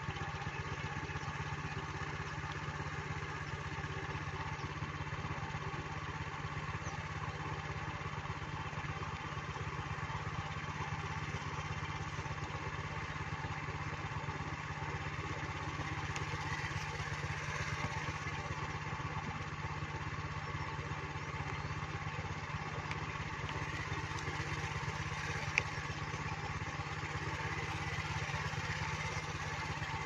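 A small engine running at a steady, unchanging speed with a low, even hum. There is one sharp click about three-quarters of the way through.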